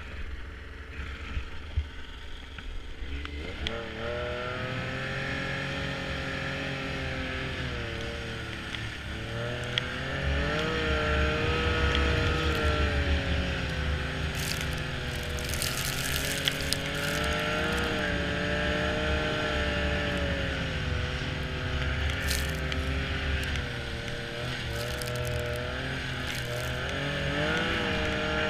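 Snowmobile engine that comes in a few seconds in, then revs up and down over and over as the machine rides, its pitch rising and falling.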